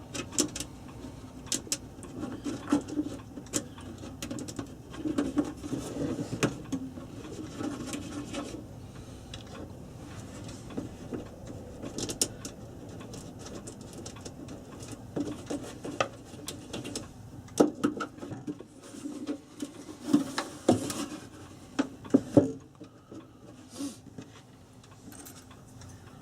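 Irregular clicks, taps and scrapes of a screwdriver and screws as the clock's case is screwed back together, with a few louder knocks from handling the parts.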